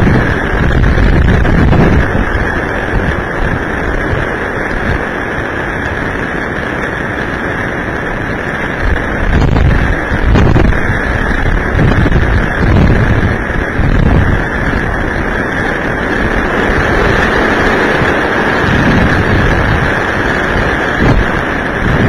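Violent storm wind from a small passing tornado buffeting a security camera's microphone: a loud, dense, rumbling rush that surges in gusts, stronger around ten seconds in and again near the end, with a steady high whine underneath.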